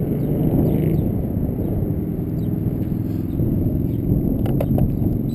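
Wind buffeting the microphone with a steady low rumble, and a few sharp clicks about four and a half seconds in as the tricopter and transmitter are handled.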